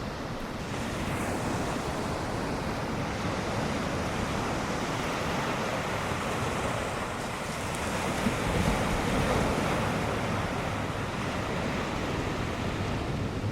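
Ocean surf: a steady wash of breaking waves, swelling louder about eight seconds in.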